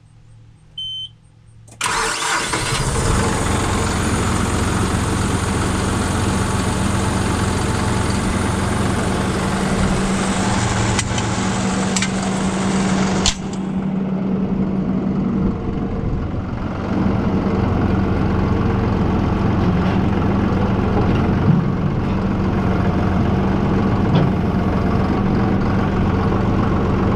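John Deere 5075E tractor's diesel engine starting about two seconds in after a short beep, then running steadily at idle. A bright hiss over the engine cuts off suddenly about halfway through.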